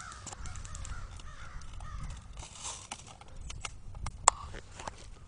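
Scattered sharp snaps of airsoft guns firing and BBs striking, with one loud crack about four seconds in. Harsh wavering cawing calls in the first couple of seconds.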